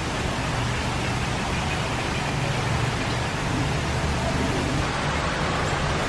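Steady rushing background noise with a low hum underneath, unchanging throughout.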